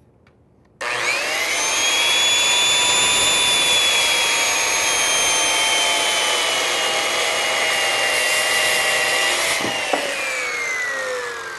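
Porter-Cable corded circular saw with a 24-tooth carbide framing blade starting up suddenly about a second in and crosscutting the end of a board, its motor whine and the blade's sawing hiss holding steady through the cut. Near the end, after a click, the motor winds down in falling pitch.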